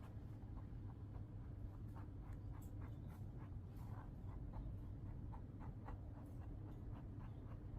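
Faint, scattered light taps and scratches, like small handling noises, over a steady low hum.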